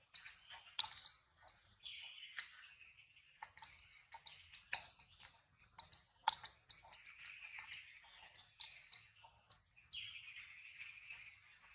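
Irregular sharp clicks and smacks from a long-tailed macaque grooming another at close range, picking through the fur with its fingers and mouth. Faint high chirping runs underneath.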